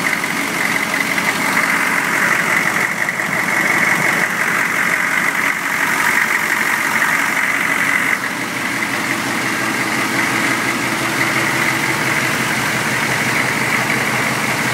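GM 6.5-litre mechanically injected turbo diesel idling steadily, still cold and warming up, with a steady high-pitched whine running through the idle.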